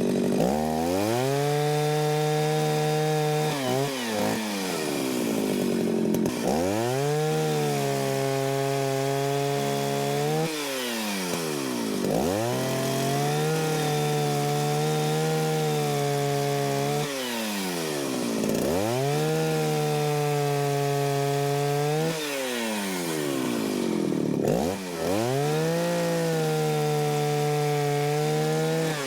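Jonsered 801 two-stroke chainsaw with a 32-inch bar and skip-tooth chain cutting through firewood logs. The engine holds a high, steady pitch through each cut and drops sharply and recovers four times as the throttle is eased and reopened between cuts.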